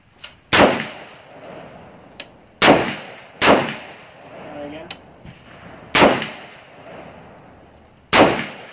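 Five shots from an AR-15 rifle fired at an uneven pace, each a sharp report with a short echo, with the rifle running its standard mil-spec buffer spring. Fainter shots from other shooters on the range fall in between.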